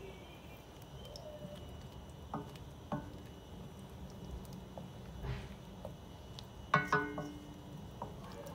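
Wooden spoon stirring diced onions in melted butter in a stainless-steel pot, with a few light knocks of the spoon against the pot and a louder double clank that rings briefly about seven seconds in.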